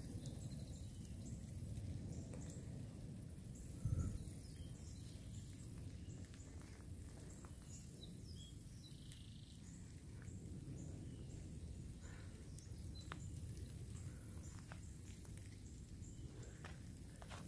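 Light rain on a river and the plants along its bank: faint scattered drips over a steady low rumble. One thump about four seconds in.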